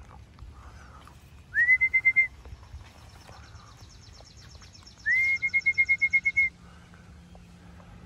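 A person whistling twice. Each whistle is a short upward glide into a high held note with a fast flutter; the second is longer than the first. It is a pigeon fancier's whistle calling racing pigeons down to the loft.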